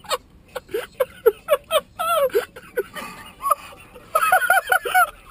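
Men laughing in short, high-pitched bursts, several a second, with a quick run of squealing laughs about four seconds in.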